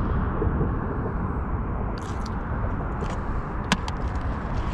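Steady low outdoor rumble, with a few light clicks in the second half.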